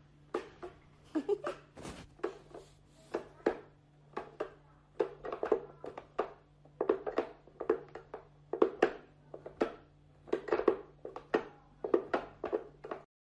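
Wooden whack-a-mole cat toy clacking as its levers are worked to pop the mole pegs up and down through the holes: an irregular run of short wooden knocks, about two or three a second.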